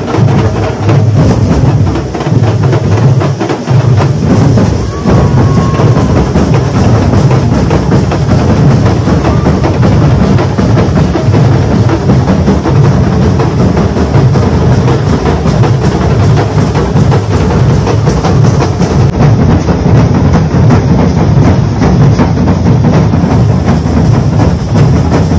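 Loud music driven by fast, heavy drumming, with a steady stream of rapid strokes and a strong bass.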